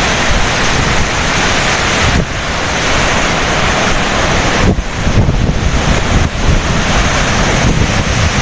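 Floodwater rushing out through a dam's open spillway gates in a loud, steady torrent, with wind buffeting the microphone.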